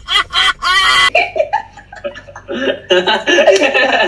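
People laughing loudly, in short repeated pulses, mixed with excited voices.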